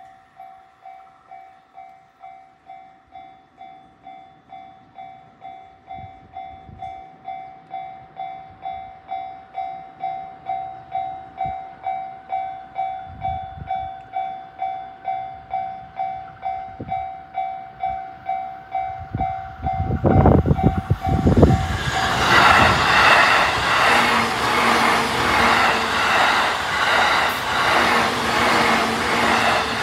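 Japanese railway crossing alarm ringing its steady, rapid 'kan-kan' bell at about two strokes a second, slowly growing louder. About two-thirds of the way through, a train passes through the crossing loudly with rhythmic wheel clatter and drowns the bell until near the end.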